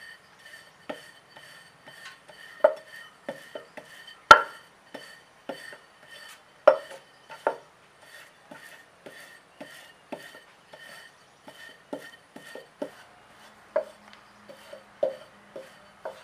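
Metal rolling pin rolled back and forth over stuffed dough on a wooden board, giving irregular clicks and knocks, roughly one or two a second, a few of them much louder.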